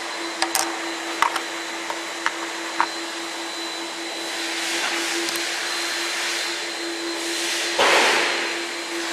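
CO2 laser engraving machine running while engraving acrylic: a steady hum with rushing air, a few sharp clicks in the first three seconds, and a brief louder surge of air noise about eight seconds in.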